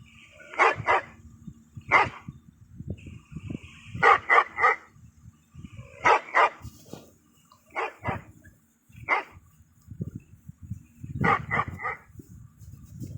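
A dog barking in short bursts of one to three barks, a new burst every second or two.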